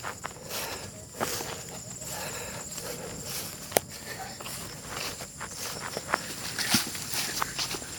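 Footsteps on rough, dry hillside ground, with irregular crunches and snaps of grass and twigs underfoot. A steady high-pitched whine runs behind them.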